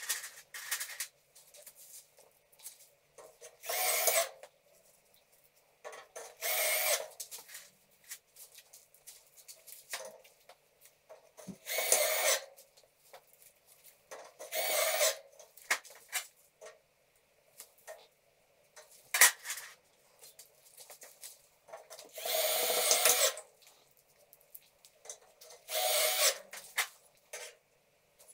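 Power drill driving screws into steel drywall profiles in about six short runs of a second or so, one every few seconds, with clicks and clinks of metal between them.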